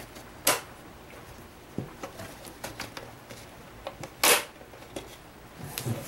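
A laptop's bottom cover being pried off with a plastic pick, its clips snapping loose: two sharp snaps, about half a second and four seconds in, with lighter clicks and taps between.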